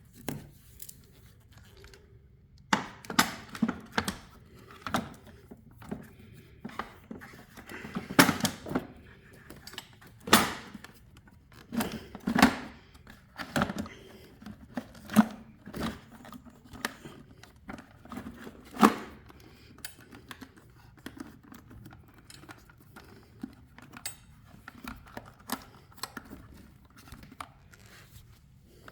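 Irregular clicks, knocks and rattles of new batteries and plastic parts being handled and set into a ride-on toy's battery compartment, with a few sharper knocks now and then.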